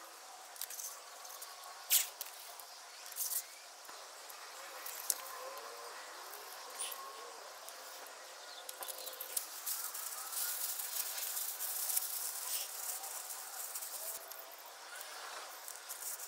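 Quiet hand work on the cylinder heads: scattered light clicks and taps, with a stretch of rustling about ten seconds in, over a faint steady hiss.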